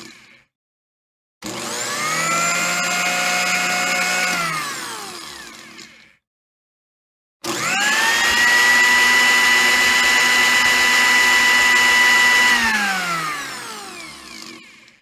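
Electric blender motor run twice. The first run, a little after a second in, spins up, holds a steady whine for about two seconds and winds down. After a short silence there is a switch click, and the second run spins up to a higher, louder whine, holds it for about four and a half seconds, then slowly winds down.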